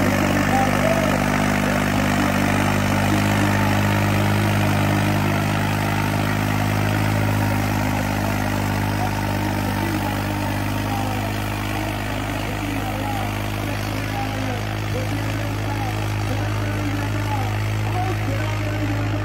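Tractor engine running steadily at an even, unchanging pitch, with the murmur of a crowd's voices behind it.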